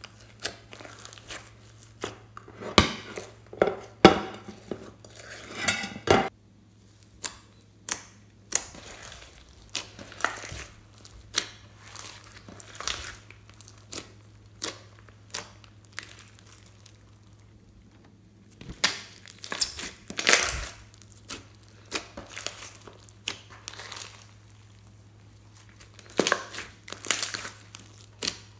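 Hands squeezing and kneading a large sticky slime mixed with foam beads (floam): irregular wet clicks, pops and crackles, often in quick clusters with short pauses between them.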